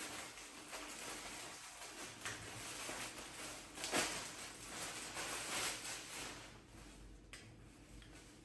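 Plastic mailer bag crinkling and rustling as it is handled and opened and clothing is pulled out, with one sharper crackle about four seconds in.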